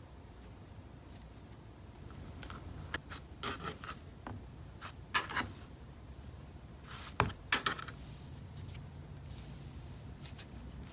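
Cloud slime being stretched, folded and pressed by hand: faint at first, then a string of short crackles and pops, the loudest about seven seconds in.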